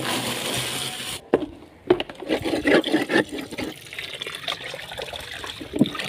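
Lumps of coal tipped out of a basin made from an old tyre, rattling down for about a second. Then water runs from a tap into the tyre basin and splashes as a hand scrubs it clean.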